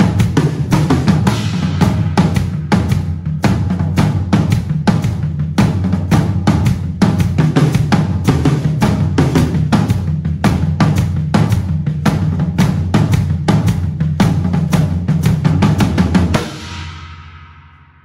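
Acoustic drum kit played hard and fast: bass drum, snare, toms and cymbals in a busy groove or fill, with a steady low bass note sounding underneath. The playing stops about sixteen seconds in, and the drums and cymbals ring out in the live studio room.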